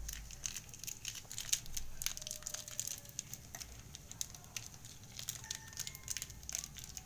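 Crinkling and crackling of a Maggi bouillon cube's foil wrapper as the cube is unwrapped and crumbled by hand: a run of irregular small clicks.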